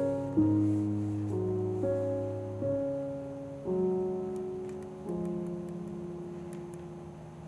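Background music: slow, soft piano chords, a new one struck about every second and left to ring. The last chord fades out towards the end.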